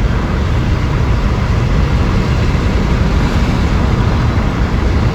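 Train passing, a loud steady low rumble.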